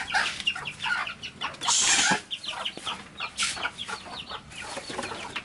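Chickens clucking repeatedly, with a brief hiss about two seconds in.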